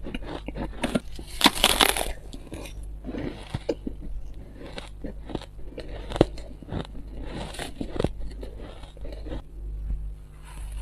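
Close-up chewing and crunching of purple shaved ice, a run of irregular crisp crunches, with a louder burst of crunching between one and two seconds in.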